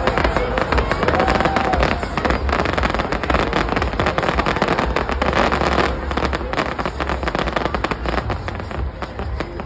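Fireworks going off in a dense, rapid run of crackling pops and bangs, with heavy low rumbling underneath.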